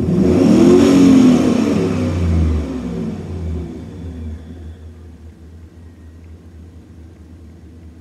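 A 2002 truck's V8 engine is blipped once from idle. It revs up sharply, peaks about a second in, and winds back down to a steady idle over the next few seconds. It is heard from inside the cab.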